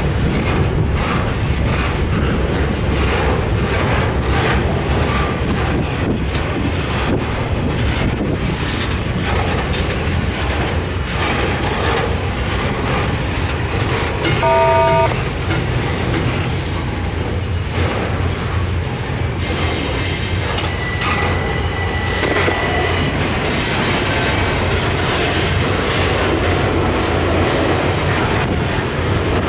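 Double-stack intermodal well cars rolling past: a steady rumble and clatter of steel wheels on rail. About halfway through there is a brief pitched ringing, and a few seconds later a thin high wheel squeal.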